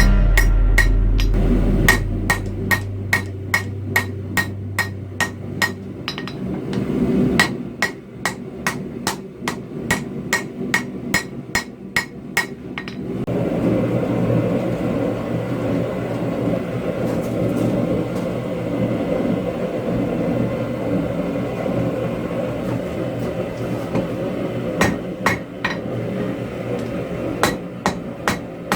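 Hand hammer striking hot steel on an anvil, about two blows a second, each with a short ring. About halfway through the blows stop and a steady rushing noise takes over, with a few more blows near the end.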